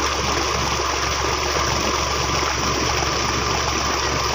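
Water gushing steadily out of a pipe outlet into a pond, churning the surface as it is pumped across from a larger pond.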